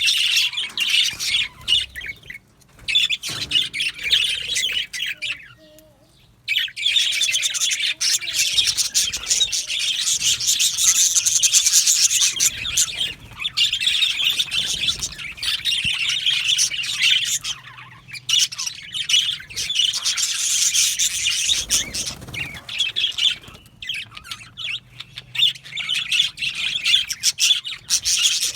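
Several male budgies chirping together in a dense, continuous high-pitched chatter, with a short lull about six seconds in.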